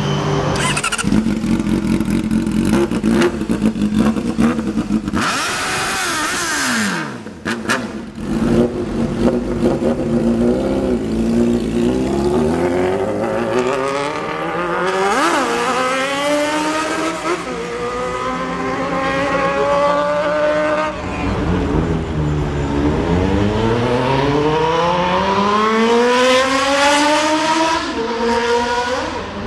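Sport motorcycle engines accelerating hard through the gears: the pitch climbs in repeated sweeps and drops back at each gear change. Several abrupt cuts break up the sound early on.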